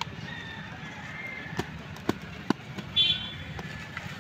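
Woven plastic sacking crinkling and rustling as it is folded by hand into a bundle, with a few sharp crackles between about one and a half and two and a half seconds in and a short high squeak about three seconds in.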